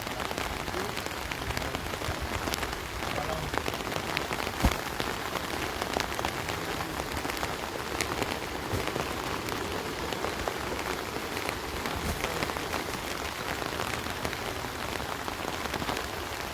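Steady splashing hiss of heavy water, dotted with many small sharp ticks like drops striking, and one louder click a little under five seconds in.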